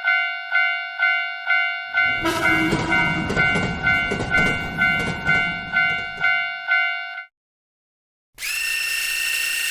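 Railroad crossing warning bell ringing about twice a second while a train passes with a rumbling clatter from about two seconds in; both cut off suddenly, and after a second of silence a horn sounds steadily near the end.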